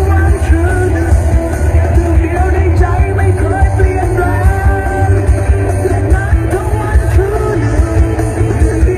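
Loud music with a singing voice and heavy bass, played through an outdoor-cinema PA system of open-front 'butterfly' speaker cabinets.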